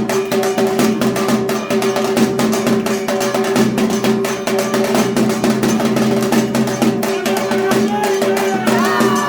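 Dhak drums beaten in a fast, dense rhythm, the strokes following one another without a break.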